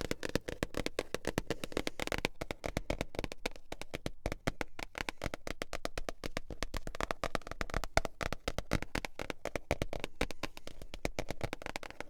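Fast, continuous tapping on manga books, many taps a second without a pause.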